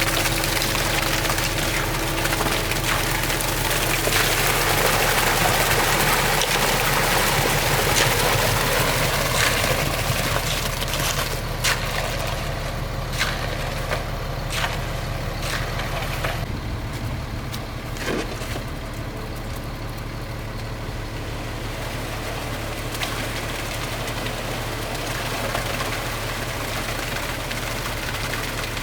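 A heavy engine running steadily, with a rushing noise over it that eases about halfway through, and a run of sharp knocks and clatter in the middle.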